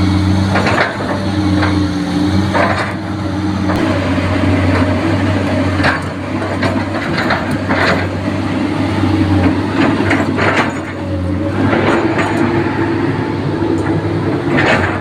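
Excavator's diesel engine running steadily under load, with repeated clanks and scrapes throughout as it clears landslide debris.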